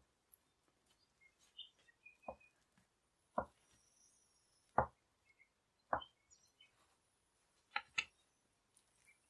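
Plastic dough scraper chopping down through a round of yeast dough and knocking on the countertop: six sharp knocks, about one every second or so, the last two close together.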